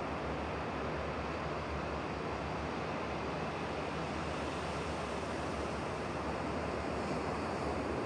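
Steady wash of sea surf: an even rushing noise with no separate wave breaks standing out.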